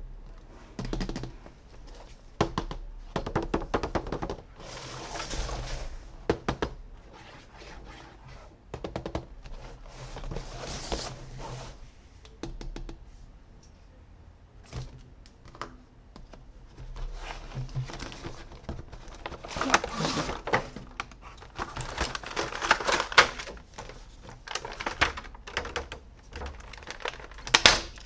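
Close-up handling of plastic toys and their packaging: irregular clicks, taps and knocks mixed with short rustles.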